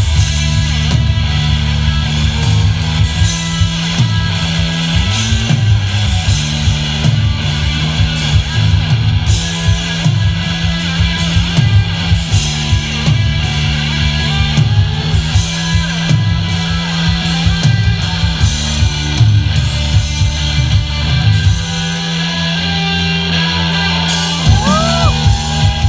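Live rock band playing an instrumental passage: electric guitars over bass and drum kit. Near the end the bass drops out for a couple of seconds, then the full band comes back in.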